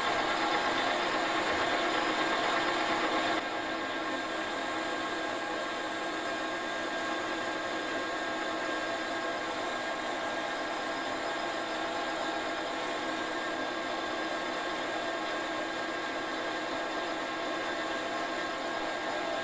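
Metal lathe running under fine power feed while turning a cylinder blank down in diameter: a steady machine whine of motor and gearing, with the cutting tool taking a light cut. It drops a little in level about three and a half seconds in, then runs on evenly.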